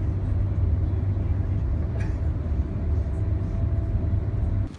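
Passenger train running on the rails, heard from inside the carriage: a steady low rumble with a faint steady whine above it, cutting off suddenly near the end.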